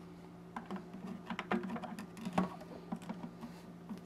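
Hard plastic parts of a protein skimmer clicking and tapping together as the red outlet pipe is fitted onto the skimmer body: a quick, irregular run of small clicks.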